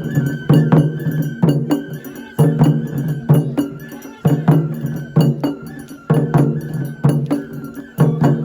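Traditional Japanese festival music (matsuri-bayashi): a steady beat of drum and bell strikes under a high, held flute line that bends a little in pitch.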